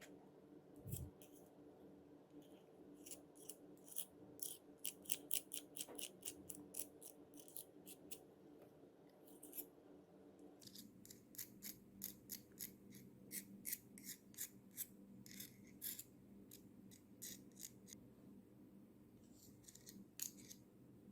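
Light, irregular clicks and ticks of small parts being handled while working on a mini angle grinder's switch, over a faint steady hum.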